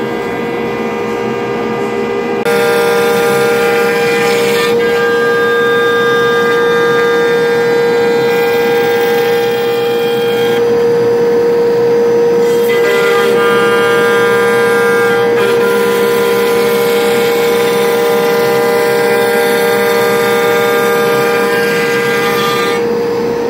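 A stroke sander running at first. About two seconds in it gives way to the louder, steady whine of a CNC router spindle and its dust extraction as the router hollows out excess wood from an autoharp frame. The mix of tones in the whine shifts every few seconds as the cutter works.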